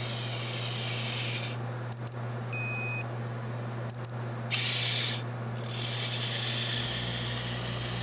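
Small wheeled maze-solving robot's drive motors whirring, then falling quiet for two short high-pitched beeps, a longer lower tone and a higher tone, and two more short high beeps, after which the motors whir again. The paired high beeps signal that the robot has stopped to get an instruction from its genetic algorithm.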